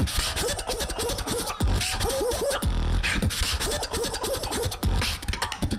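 Solo human beatboxing: deep bass kicks and sharp mouth clicks under short, curling rising-and-falling vocal sound effects.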